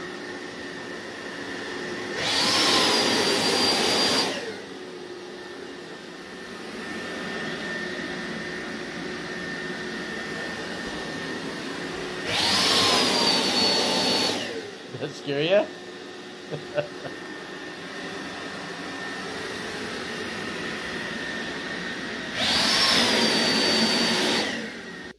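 The battery-powered electric fan of a PIEPS JetForce avalanche airbag runs steadily with a thin whine. Three times, about ten seconds apart, it spins up to full speed for about two seconds, its whine rising and then holding, to keep the deployed airbag hard-inflated.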